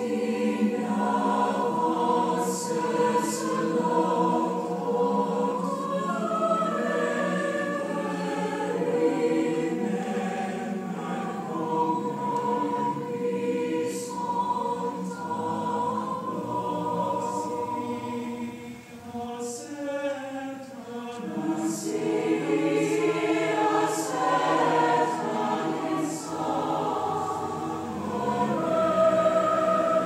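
Choir singing a slow piece with long-held chords, laid over the pictures as background music.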